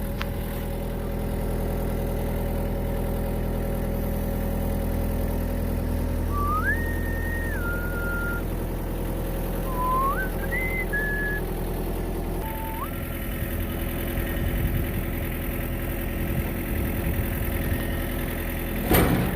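Excavator diesel engine running steadily while it sets a heavy fuel transfer tank down. Midway there are a few short whistled notes that step up and down in pitch. The engine sound shifts about twelve seconds in.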